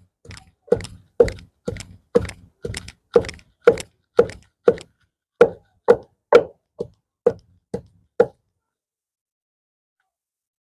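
Pestle pounding chopped pumpkin leaves in a mortar: steady, even thuds about two a second that stop about eight seconds in.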